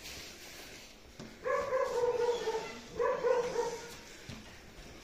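A dog giving two long, drawn-out whining cries, one about a second and a half in and another about three seconds in.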